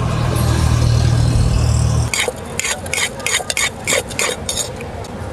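A low rumble for the first two seconds, then a spoon scraping round a bowl in quick strokes, about three a second, as bhel puri is mixed.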